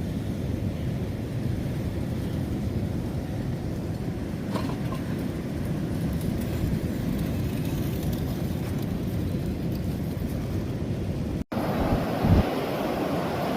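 Wind rumbling steadily across the microphone. About eleven and a half seconds in it cuts off abruptly and gives way to a brighter hiss with a short bump.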